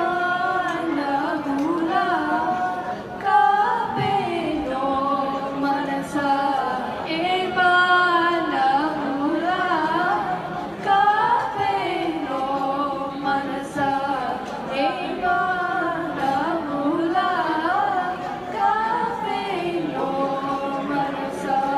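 Young girls singing a melody into microphones, with long held notes that bend and slide in pitch.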